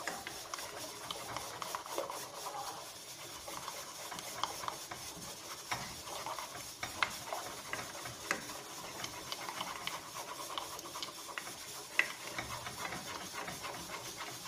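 Egg being stirred in a pan of hot olive oil and garlic: a utensil scraping and clicking against the pan over a soft, steady sizzle.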